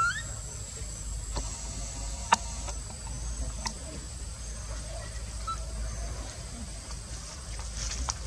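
Quiet outdoor background with a steady low rumble and a faint, steady high whine. A brief rising squeak comes right at the start, and a few sharp clicks follow, one or two seconds apart.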